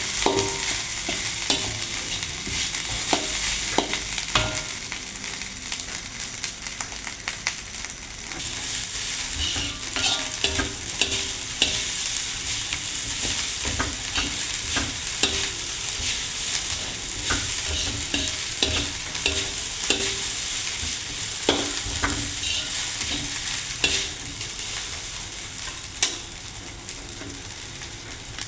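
Nasi goreng (fried rice) sizzling in a hot pan while a spatula stirs it, scraping and knocking against the pan repeatedly over a steady sizzle.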